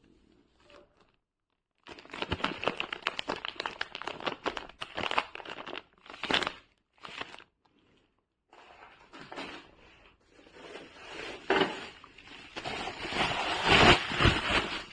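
Crinkling and crunching handling noise in irregular spells with short pauses, loudest near the end; no motor is running.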